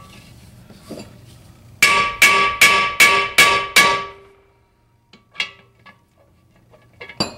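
Hammer blows on a bearing driver, knocking a bearing out of an NP208 transfer case half: six quick ringing metallic strikes, about two and a half a second, then a lighter knock and two more strikes near the end.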